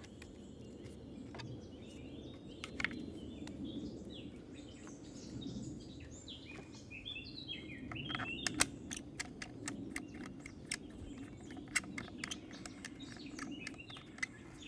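Birds chirping over steady outdoor ambience, with scattered sharp clicks and taps from the wooden riser and limbs of a takedown recurve bow being handled, coming thicker in the second half.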